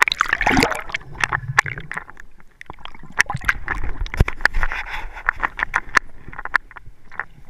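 Water sloshing and splashing around an action camera at the waterline, with many sharp clicks and knocks on its housing as it dips in and out of the water.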